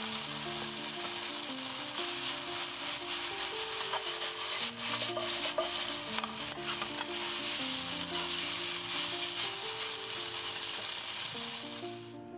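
Spaghetti with sliced manganji peppers sizzling in olive oil in a frying pan as it is stirred and tossed, with scattered clicks and scrapes against the pan around the middle. The sizzle cuts off suddenly near the end.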